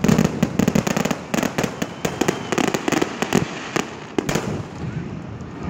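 Fireworks display: a rapid run of sharp bangs and crackling pops from aerial shells bursting, thinning out after about four seconds.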